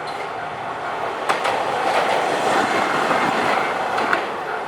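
Hankai Tramway tram passing over a level crossing, its wheels rumbling on the rails. There is a sharp clack about a second in and another near the end as the wheels cross rail joints.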